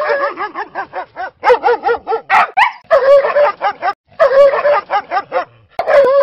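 Small dog yapping: quick runs of short, high barks, several runs broken by brief pauses.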